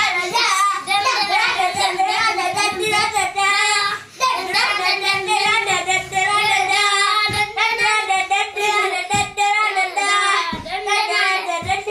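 A child singing a high-pitched song in long, wavering held notes, with a brief break about four seconds in. A few dull bumps sound in the second half.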